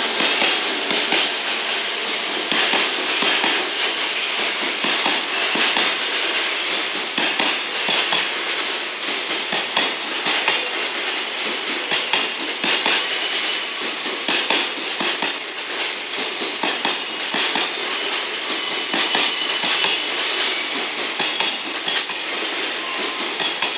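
Container wagons of a long freight train rolling past close by: a steady rumble of steel wheels on rail with rapid, uneven clatter and clanks as the wheelsets cross rail joints. Thin, high wheel squeal rises near the end.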